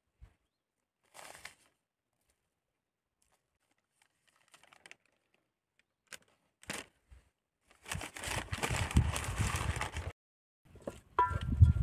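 Sparse light rustles and clicks, then about two seconds of loud, dense rustling with a low rumble, and near the end two sharp clinks that ring briefly.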